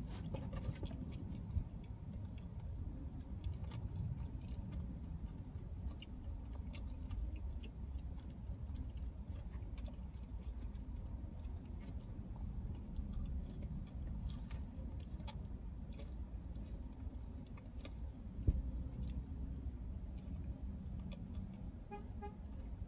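Close-up chewing of pizza, with small scattered clicks and crunches, over a steady low rumble inside a car. One louder knock comes about eighteen seconds in.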